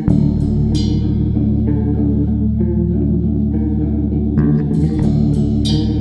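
Thrash metal/hardcore band recording: distorted electric guitars and bass playing a riff with drums, sharp cymbal-like crashes about a second in and again near the end.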